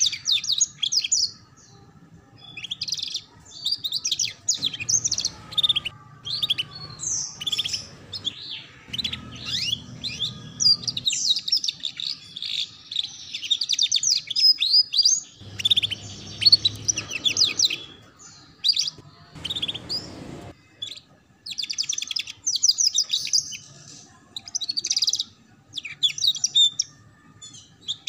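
Domestic canary singing in fast, rolling trills and chattering phrases broken by short pauses: the 'ngeriwik' style of song used as a master song for young canaries to learn.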